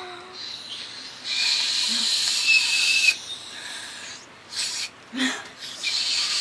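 Whistling attempts through a mouthful of pretzels: mostly breathy blowing with a thin, wavering whistle tone, in two long tries about a second in and near the end, with short puffs of breath between.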